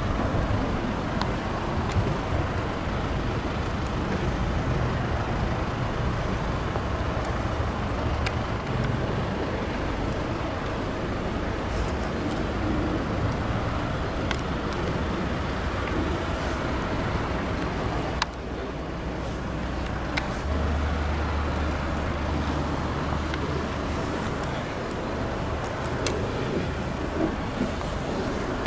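Steady low rumble of road traffic, with wind on the microphone; a deeper steady hum joins about twenty seconds in.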